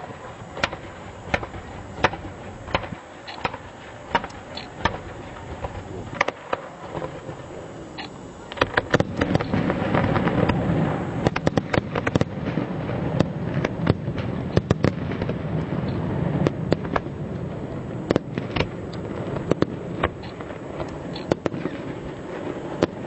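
Fireworks display: sharp bangs go off every half second or so, then about nine seconds in they build into a louder, dense barrage of rapid bangs and crackling over a rumble.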